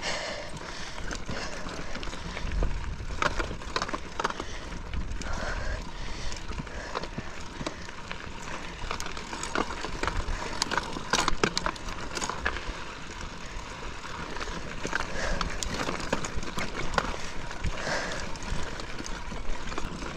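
Mountain bike climbing a steep, rocky trail: the tyres and bike rattle over rocks with scattered sharp clicks and knocks.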